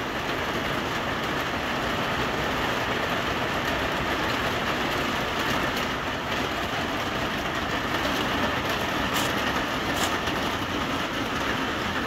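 Heavy rain falling on a small greenhouse, heard from inside: a dense, even rush of drops on the roof and glass panes, holding steady throughout.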